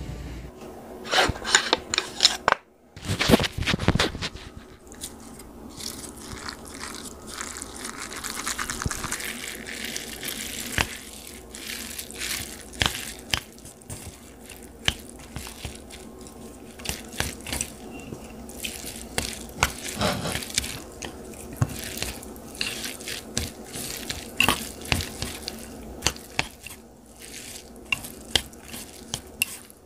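Wooden chopsticks mixing sauced noodles and shredded cabbage in an earthenware bowl: wet, sticky squelches with irregular light clicks of the chopsticks against the bowl.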